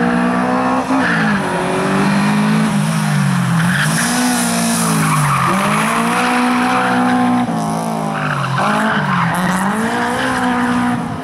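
Honda Civic hatchback's VTEC petrol engine revving hard and easing off again and again through tight turns, its pitch rising and falling several times, with tyres squealing and skidding on the asphalt.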